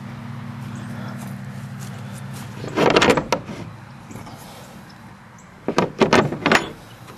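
Metal slide-bolt latch on a plywood chicken coop door being worked by hand, clacking: a quick run of sharp clacks about three seconds in and three more near the end. A low steady hum runs through the first couple of seconds.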